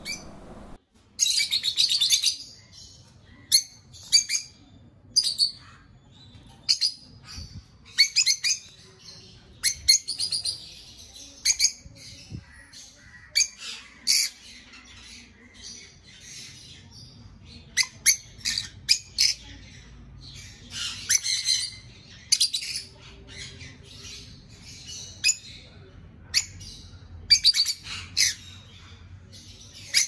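Young peach-faced lovebirds chirping and squawking in short, sharp, irregular high calls, several birds calling over one another.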